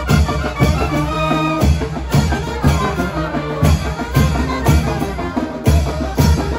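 Street brass band playing chinelo dance music: trumpets and trombones carrying the tune over a tuba and drums, with a steady beat of about two strokes a second.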